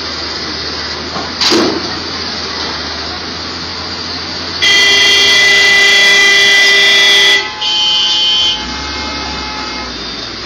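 Vehicle horn honking: one long blast of nearly three seconds, then a shorter blast a moment later, over steady street traffic noise.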